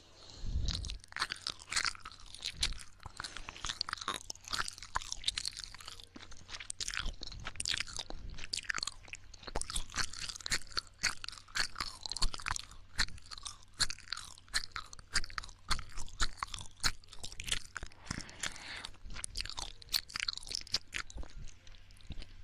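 ASMR ear-licking mouth sounds: a continuous stream of wet licking, smacking and tongue clicks, several short crisp clicks a second.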